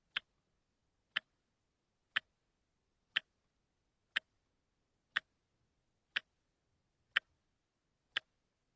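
Mechanical wristwatch ticking, picked up through a contact microphone: one short, sharp tick each second, evenly spaced, with silence between.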